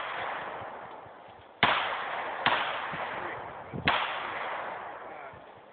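Three gunshots on a shooting range with steel targets, irregularly spaced, each sharp crack trailing off over about a second. The tail of another shot fades at the very start.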